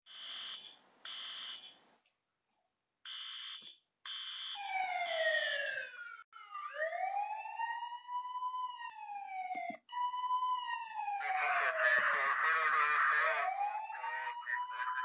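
An electronic alarm sounds in five short, even bursts. Then police siren wails take over, several overlapping, each sweeping slowly down and up in pitch. A harsh, rough buzzing layer sits loudly over the sirens for a couple of seconds near the end.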